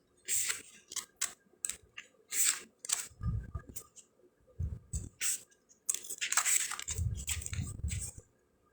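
Paper handling: pages of a guidebook being leafed through, a string of short rustles and flicks with a few soft bumps.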